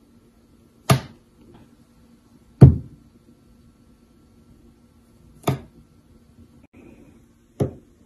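Four sharp knocks on a countertop, roughly two seconds apart, the second the loudest.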